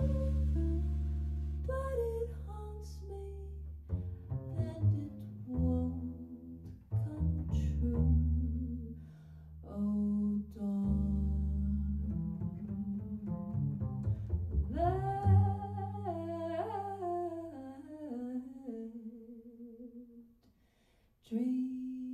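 Live jazz combo: a woman sings a slow melody over upright double bass and band. The music drops away to near silence for about a second near the end, then comes back in.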